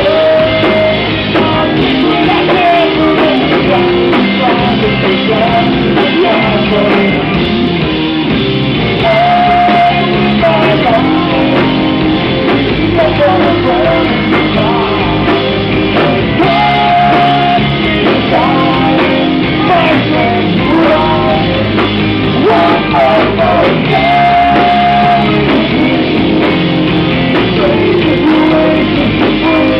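Rock band playing live, loud, with singing over guitars and drums; the singer holds a long note every several seconds.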